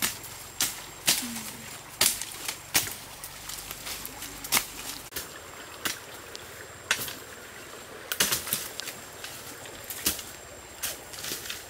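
Irregular sharp cracks and rustling of branches and undergrowth being broken and pulled by hand, over the steady rush of a fast-flowing stream.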